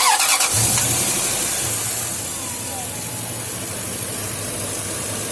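Toyota Tundra's 4.7-litre V8 starting: it catches at once and settles into a steady idle, the level easing off over the first two seconds. The engine runs lean, setting code P0171.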